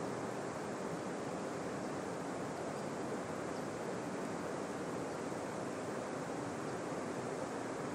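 Steady rush of flowing water, an even hiss-like noise that holds at one level without breaks.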